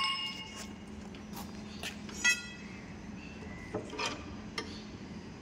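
Scattered metal clicks and taps of hand tools on a stripped-down Cummins KT1150 engine block as its timing cover is worked loose, with one ringing clink a little after two seconds. A steady hum runs underneath.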